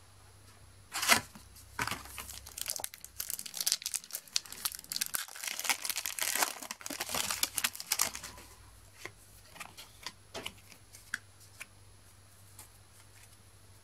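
Match Attax trading card packet wrapper crinkling and tearing as it is opened: a sharp crackle about a second in, then dense crinkling from about two to eight seconds, dying down to a few faint rustles of the cards.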